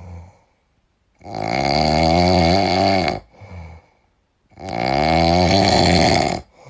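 A man snoring loudly in his sleep: two long snores of about two seconds each, a little over three seconds apart, with short faint breaths between them.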